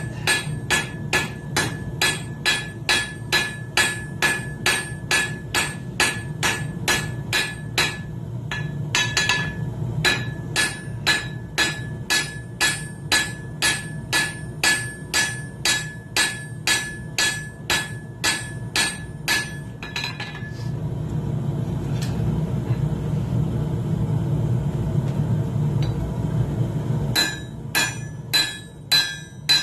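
Hammer blows on hot coil-spring steel on an anvil, about two a second, each with a short metallic ring, widening the jaw of a pair of wolf jaw tongs. The hammering breaks briefly around eight seconds in, stops for about seven seconds with a steady low rumble underneath, then starts again near the end.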